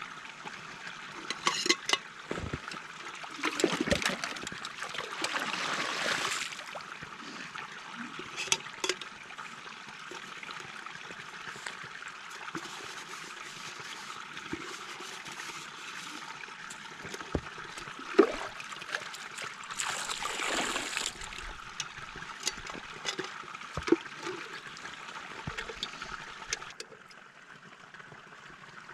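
A small stream running and trickling steadily, with louder splashing and pouring twice as a metal pot is dipped in and filled, and a few light knocks. The water sound drops off near the end.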